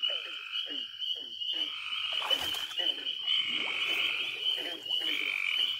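Frogs calling in a pond chorus: a steady high-pitched trilling drone with longer trills laid over it, and short, low, falling calls repeating two or three times a second.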